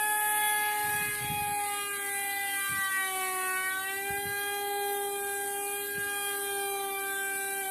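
Small electric motor of a toy remote-control helicopter running at speed: a steady high whine with a faint hiss, dipping slightly in pitch midway, with a few light knocks.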